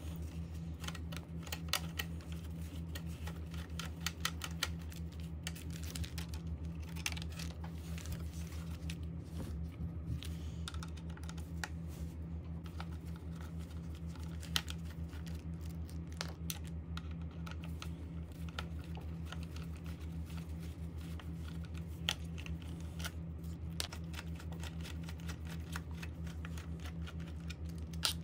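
Precision screwdriver turning small screws out of a 2013 Mac Pro board assembly: many irregular light clicks and ticks of the metal bit and screws, over a steady low hum.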